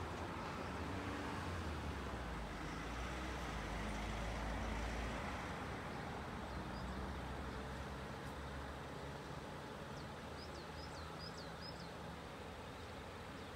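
A hearse and the cars behind it creeping along at walking pace, their engines and tyres a steady low rumble that eases after about five seconds. A few short bird chirps near the end.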